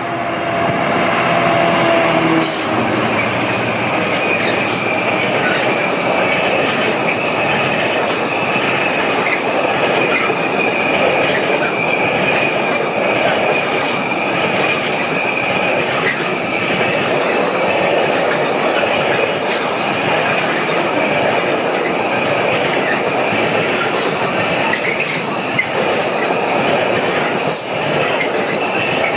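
DRS Class 66 diesel locomotive passing close by, its engine heard for the first couple of seconds. A long train of loaded container wagons then rolls past, with a steady high wheel squeal for about the first half and occasional clacks of wheels over the rail joints.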